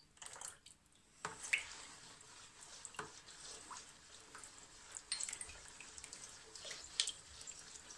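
Melted butter poured into milk in a plastic bowl, then a silicone spatula stirring the liquid: faint sloshing and swishing with a few light taps against the bowl.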